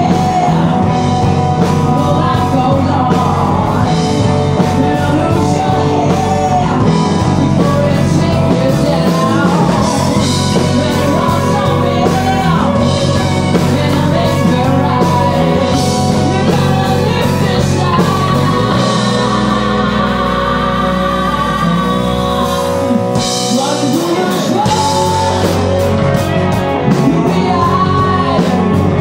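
Live rock band playing, with a woman singing lead over electric guitars and bass; the bass drops out briefly about three quarters of the way through.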